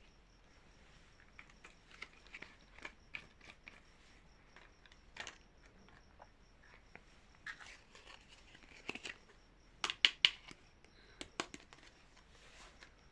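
Packaging being handled and opened by hand: scattered crinkles, light taps and clicks, with a louder cluster of sharp snaps about ten seconds in.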